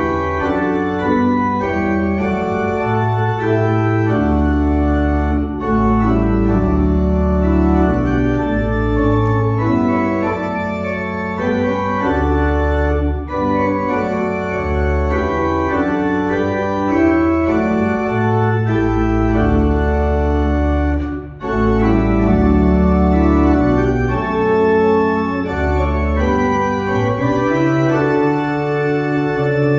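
Pipe organ playing slow held chords over a deep pedal bass line, with a short break between phrases about two-thirds of the way through.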